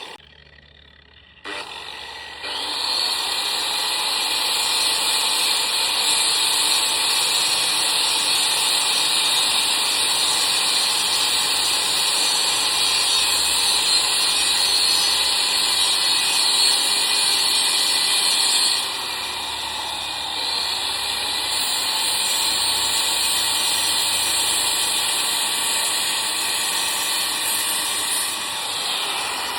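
Angle grinder starting up about two seconds in and then cutting steadily through a thick steel rod with a loud, high grinding hiss. The sound drops a little in level about two-thirds of the way through and carries on.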